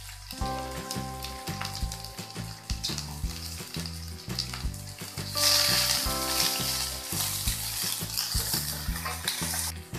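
Sliced onion frying in hot oil in a pan, sizzling steadily. About halfway through, the sizzle grows much louder as a wooden spatula stirs the onions, then stops suddenly near the end. Background music plays underneath.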